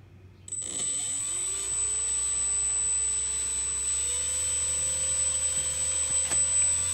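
Brushless electric motor of an E-Flite Opterra spinning a 13x7 inch Graupner folding propeller on a thrust-test rig. It starts about half a second in and runs steadily with a thin high whine, its thrust building as the throttle is held up.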